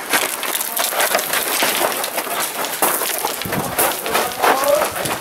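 Busy, irregular crackle of footsteps on a gravel floor and rustling gear as airsoft players move quickly through close quarters, with many sharp clicks.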